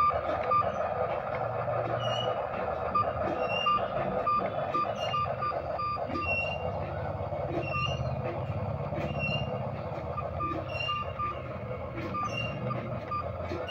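Remote-control toy excavator's small electric drive motors and plastic gears running steadily as it crawls on its tracks. Short high beeps come and go now and then.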